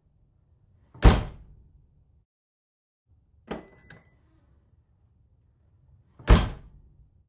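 Car trunk slammed shut twice, one loud sharp impact about a second in and another near the end. In between come two light clicks of the trunk latch, with a brief thin ring on the first, as the trunk is opened again.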